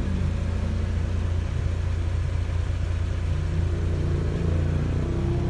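Swapped-in Toyota Land Cruiser turbo-diesel engine idling, heard from inside the cab as a steady low rumble.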